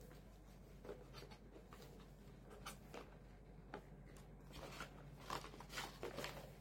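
Faint rustling, tapping and clicking of cardboard and packaging being handled while items are taken out of a product box, with sharper clicks in the last two seconds.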